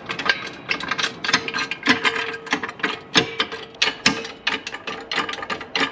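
Hydraulic floor jack being pumped, lifting the frame just enough to take the load off the rear shock: rapid, irregular mechanical clicking and rattling over a steady faint tone.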